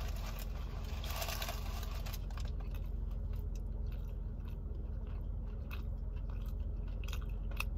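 Close-up chewing and crunching of a mouthful of sub sandwich, with a louder crunchy bite about a second in, then scattered small crackles as she keeps chewing.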